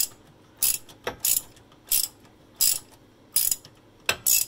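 Hand ratchet with a universal joint, extension and 12 mm socket unscrewing a loosened bolt, its pawl clicking in a short burst on each return stroke, about one burst every three-quarters of a second.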